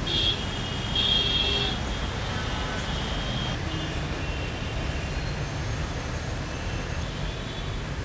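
Steady rumble of road traffic, with two brief high-pitched tones near the start, the second about a second in.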